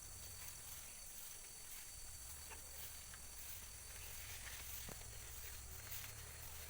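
Faint outdoor field ambience: a steady high hiss with a thin steady tone over a low rumble, and a few small clicks, one more distinct about five seconds in.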